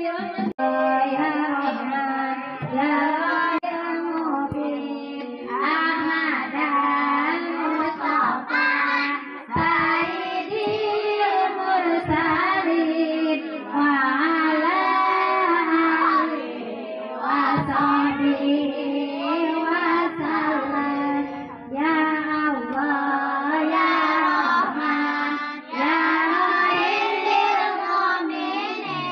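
Group of children singing a devotional Maulid song (sholawat) together in long phrases, with a woman's voice joining through a microphone, and short breaks between phrases.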